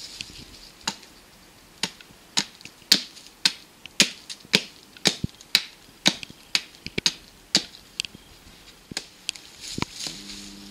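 Small axe chopping the end of a stick braced against a log, shaping it into a lever: a run of sharp wooden knocks, irregular at about two a second.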